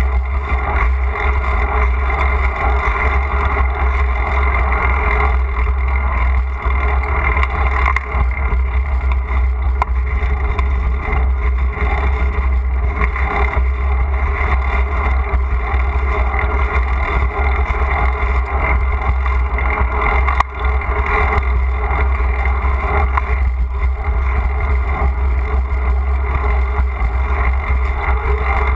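Steady low rumble of wind and riding noise on a bike-mounted GoPro's microphone while cycling along a street. It dips briefly about twenty seconds in.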